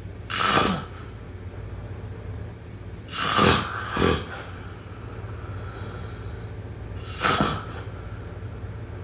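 Snoring: short, noisy snores about every three to four seconds, one of them followed quickly by a second, over a steady low hum.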